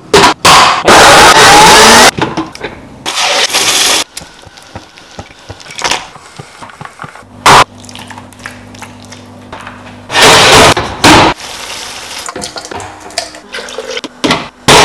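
A series of short kitchen sounds, the loudest being bursts of a countertop blender puréeing tomatoes, each about one to one and a half seconds long, with quieter clatter and handling noises between them.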